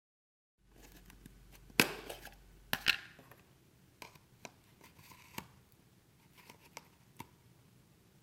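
Kitchen handling sounds while making a snack: a run of sharp clicks and knocks with brief rustling, the loudest about two and three seconds in, then fainter, spaced-out clicks.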